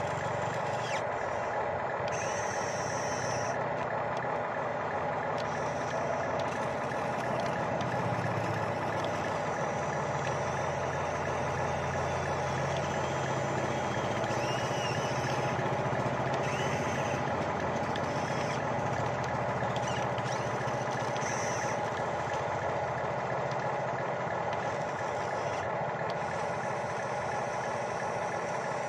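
Steady, unvarying engine drone of heavy machinery.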